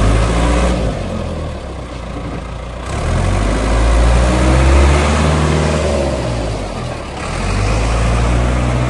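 Diesel engine of a Ford New Holland 655C backhoe loader running, its speed and loudness rising and falling several times, loudest about four to five seconds in.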